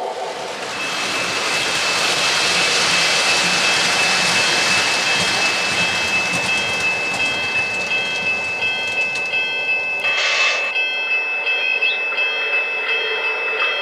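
O-gauge model train running: a steady rolling hiss with a few steady high whining tones over it, and a short burst of hiss about ten seconds in.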